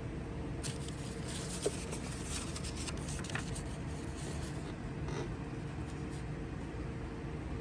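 Paper rustling in short scratchy bursts as a smoke alarm's instruction leaflet is handled, with one sharp click about a second and a half in, over a steady background hum.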